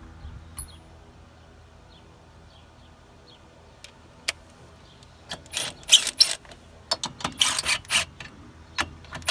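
A wrench tightening the 16 mm bolts on a mower cutter-bar hub cover: after a few quiet seconds with single clicks, short bursts of ratcheting and metal clicking start about five seconds in and repeat several times.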